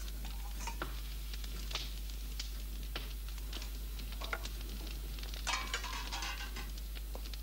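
Silver plates clinking and knocking as they are taken from a wooden cupboard: scattered small knocks, then a quick cluster of rattling clinks about five and a half seconds in, over a steady low hum.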